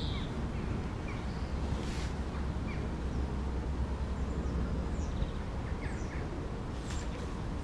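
Outdoor riverside ambience: a steady low rumble with faint, scattered short bird chirps and a few soft clicks.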